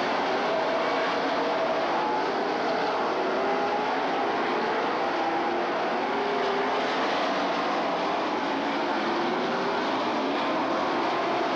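A pack of stock car V8 engines racing at full throttle. Several engine notes overlap and rise and fall in pitch as the cars go around the turns, with no break.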